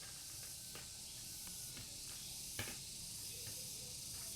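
Steady background hiss with a few faint clicks, and one sharper click about two and a half seconds in.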